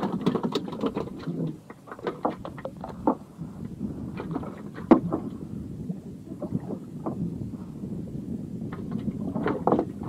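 Small wooden boat on choppy water, waves slapping against the hull, with scattered knocks and clicks; one sharper knock about five seconds in.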